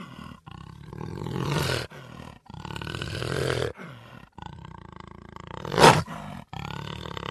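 Cheetah growling in a series of long, rasping calls with short breaks between them, and a sudden sharp, loud burst about six seconds in.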